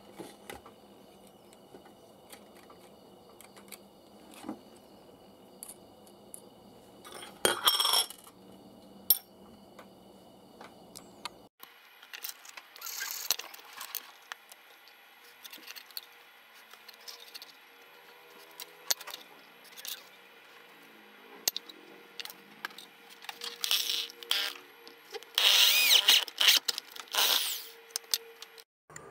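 Hands working with small metal parts and tools on a hard tabletop: scattered clicks, clinks and knocks as a blender motor, a metal speaker cap and a ruler are picked up, set down and slid about, with a few short scrapes. The busiest, loudest stretch of clinking and scraping comes near the end.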